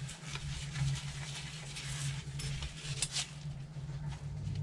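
Small clicks and rustling from plastic RC car parts and a hex driver being handled with gloved hands while screws are lined up. A steady low hum runs underneath.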